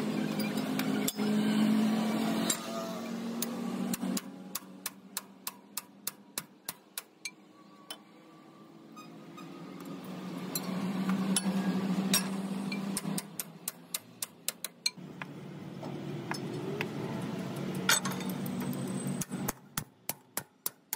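A hammer striking metal in several runs of quick, evenly spaced blows, about three a second, over a steady low hum.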